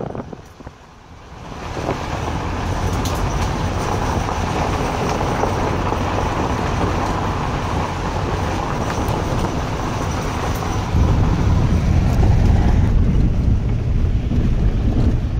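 Vehicle driving on a gravel forest road, heard from inside the cab: a steady rumble of tyres and engine. The sound dips briefly about a second in, and the low rumble grows louder about eleven seconds in.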